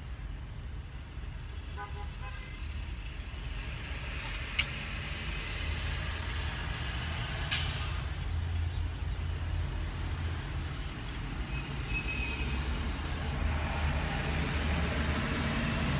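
A vehicle engine running steadily with a low rumble. A few short clicks about four and seven and a half seconds in.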